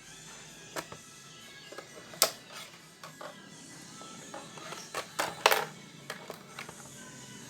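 Quiet background music with a few sharp clicks and knocks, the loudest about two seconds in and a close pair about five and a half seconds in.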